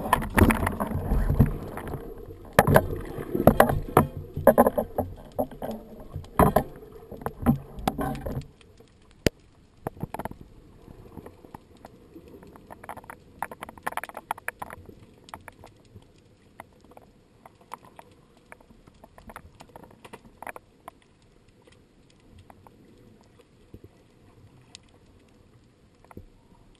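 Underwater water noise heard through a speargun-mounted camera's housing: loud, rough rushing with many knocks and clicks, then about eight seconds in it drops suddenly to a quiet background with scattered faint clicks.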